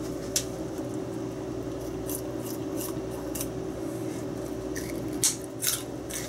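Rabbit biting into crisp greens: a series of short, sharp crunches at irregular moments, a few louder ones near the end, over a steady low hum.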